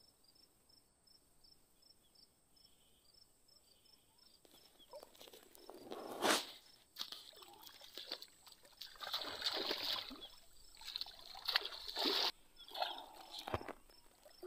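Water sloshing and splashing around a man's legs as he wades through shallow, weedy pond water. The first few seconds are nearly quiet; the sloshing begins about four seconds in and comes in uneven surges, with a sharper splash around six seconds in.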